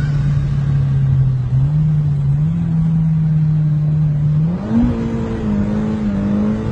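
Toyota Altezza engine held at high revs while drifting, its note holding steady, then stepping up sharply a little before five seconds in and holding again, over a low rumble.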